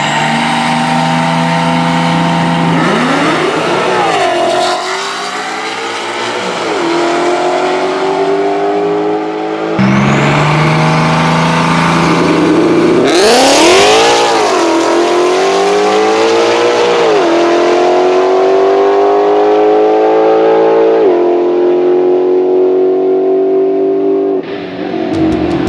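Supercharged, nitrous-fed Ford Coyote 5.0 V8 in a Mustang drag car, held at steady revs on the starting line, then launching and pulling hard down the strip. Its pitch climbs through the gears and drops back at each shift, with a second race car running in the other lane. This happens twice, with a cut about ten seconds in, and music comes in at the very end.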